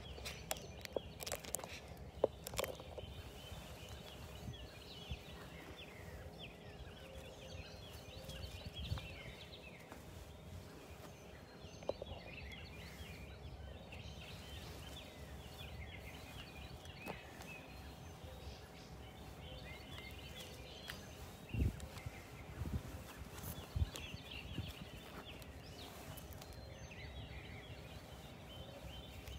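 Many small birds chirping and singing together in a dawn chorus, over a faint steady hum. A few sharp clicks and knocks stand out near the start and about two thirds of the way through.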